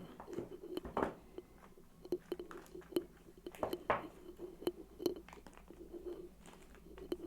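Hands opening a new iPhone XR retail box: irregular clicks, crackles and scrapes of the packaging being handled.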